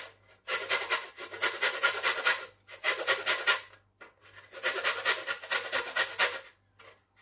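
Lemon rubbed against a stainless-steel box grater to take off the zest: a rapid rasping, about five strokes a second, in four runs with short pauses between.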